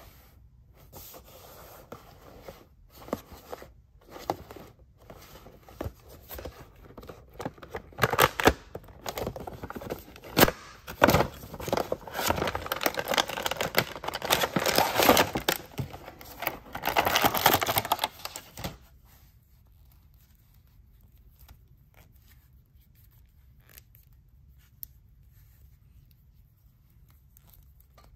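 Hands opening a cardboard window toy box and its clear plastic insert: cardboard and plastic rustling, scraping and crinkling, busiest and loudest in the middle. For the last third or so there is only faint handling.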